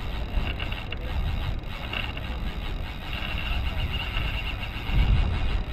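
Wind buffeting the microphone, a fluctuating low rumble, with a faint high whir coming and going.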